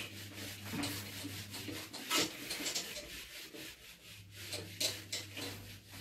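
Whiteboard eraser rubbing across a whiteboard in repeated wiping strokes, with a faint low hum underneath.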